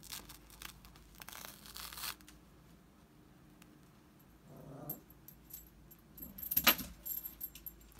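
Rustling and crackling of fusible-backed applique fabric being peeled up and handled on a non-stick applique pressing sheet, in short bursts, with a sharp crinkle near the end as the loudest sound.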